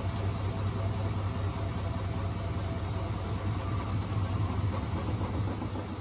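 Front-loading washing machine running a wash cycle: a steady low motor hum as the drum turns with water and laundry inside.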